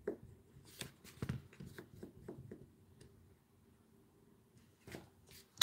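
Faint scratchy rubbing of an eraser scrubbed in short strokes over a clear stamp, conditioning its surface for a crisper stamped image. The strokes fade out after about three seconds, and there are a couple of light taps near the end.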